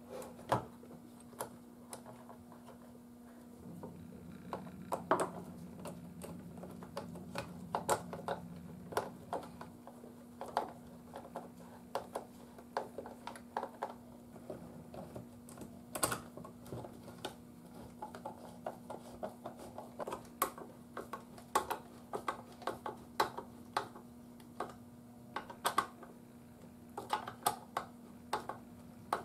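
Irregular small clicks, taps and scrapes of small radio parts, screws and hand tools being handled on a workbench, over a steady low hum.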